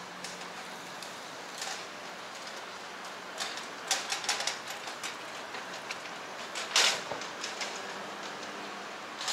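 Hand truck's small wheels rattling and clicking over sidewalk paving as it is pushed past, with a run of quick clicks about three and a half seconds in and a louder clatter near seven seconds. Under it, steady street noise with a faint low hum.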